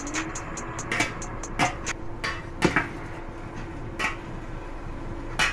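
A white plastic spatula stirring liver and vegetables in a stainless steel pot, scraping and knocking against the metal. The knocks are irregular, about six of them, and the loudest comes about two and a half seconds in.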